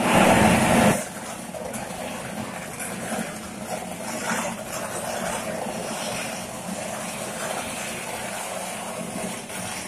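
Electrical short circuit arcing on a railway platform: a loud rushing crackle for about the first second, then a quieter steady hissing rush.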